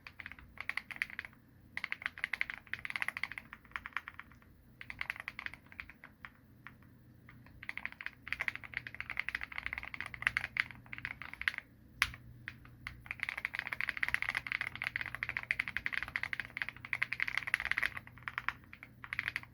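Keychron Q1 mechanical keyboard with Feker Panda switches on a polycarbonate plate, KAT Katha keycaps and Gateron stabilisers, dampened by force-break, tempest and fatmat mods, being typed on. The keystrokes come in fast runs broken by short pauses, with one sharper click about twelve seconds in.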